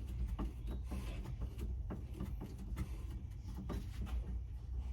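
Screw being backed out of a truck's heater and AC control panel: faint, scattered small clicks and ticks of the screwdriver and panel parts over a steady low hum.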